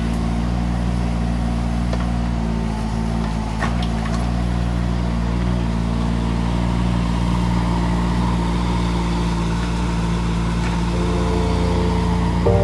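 Heavy diesel engine of construction machinery running steadily, with a few faint knocks about three and a half seconds in; a set of higher steady tones joins near the end.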